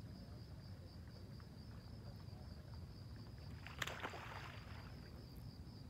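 Insects chirping in a steady, even pulse, over a faint low rumble. About two-thirds of the way through comes a sharp click followed by a second of hissing.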